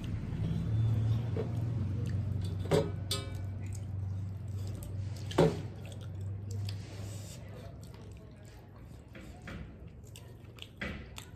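Wet squishing of rice and curry being mixed and squeezed by hand on metal plates, with chewing, over a low steady hum that fades about two-thirds through. Two sharp clicks stand out, a little under 3 seconds in and again about 5 seconds in.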